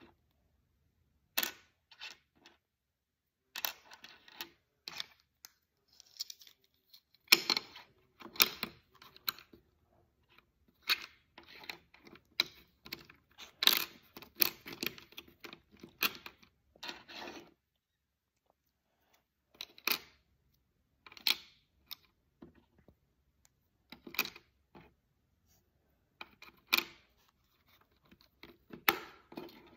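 Small plastic toy blocks clicking and tapping against each other and a wooden tabletop as they are picked up, set down and fitted together, in irregular clusters of clicks with short pauses.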